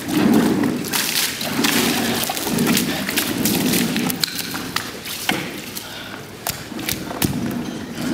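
Dull thumps and rumbling from a water-filled aquarium on a wheeled platform being shoved across a wet concrete floor. The thumps come about once a second and weaken in the second half, with scattered sharp clicks.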